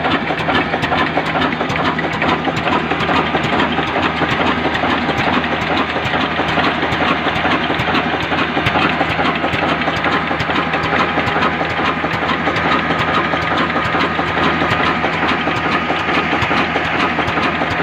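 Kala stationary diesel oil engine running steadily at idle, with a dense, even knocking beat.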